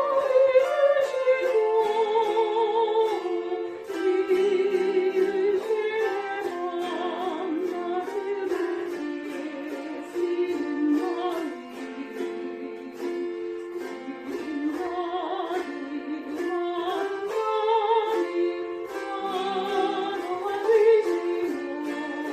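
Chromaharp ensemble strumming chords while a woman sings a slow melody with a wavering vibrato.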